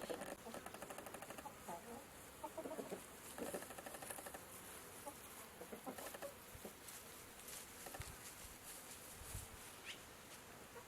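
Chickens clucking softly in a few short runs of rapid clucks, with quieter gaps between.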